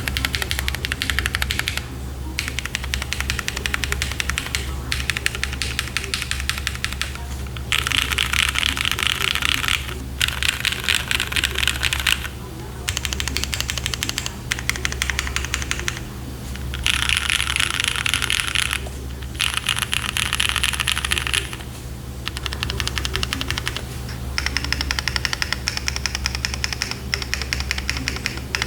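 Neo60Cu gasket-mount keyboard with an aluminium plate, modded vintage Cherry Black switches and Cherry keycaps, typed on quickly in runs of a few seconds each, broken by short pauses. A steady low hum runs underneath.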